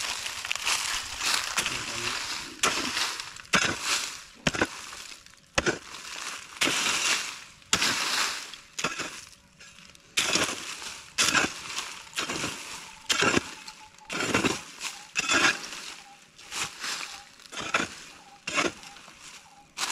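A hand mattock chopping into hard-packed, gravelly soil under dry leaves, about one strike a second. Each strike is a sharp crunching thud with loose earth and dry leaves scattering.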